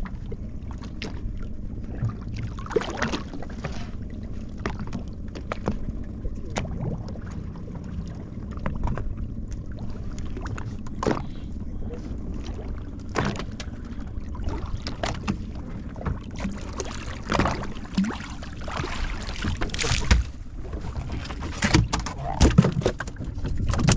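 Small fishing boat at sea: a steady low rumble with frequent knocks and thumps against the boat, louder and closer together near the end.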